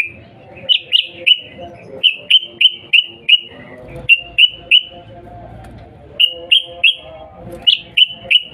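Yellow-vented bulbul giving its agitated 'cuk cuk' call: short, sharp downslurred notes about three a second, in bursts of three to five with brief pauses between.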